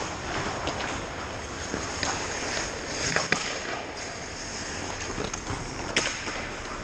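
Ice hockey play: skates scraping across the ice under a steady noise, with sharp clacks of sticks and puck, two close together a little after three seconds and another near the end.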